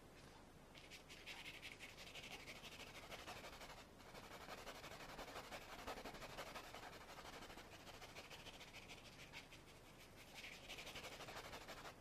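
Faint scratchy brushing of a paintbrush worked back and forth over the painted wooden panel, blending the paint. It starts about a second in and pauses briefly twice, about four seconds in and again near ten seconds.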